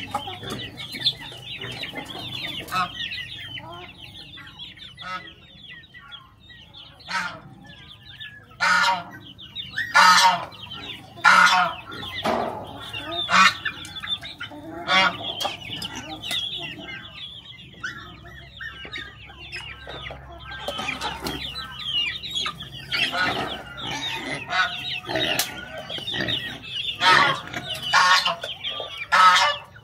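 A flock of chickens clucking steadily, with frequent louder squawking calls through the middle and second half.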